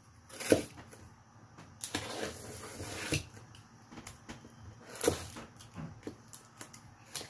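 A utility knife slicing along the packing tape of a cardboard box for about a second, with sharp clicks and taps from the knife and hands on the cardboard; the loudest is a single click about half a second in.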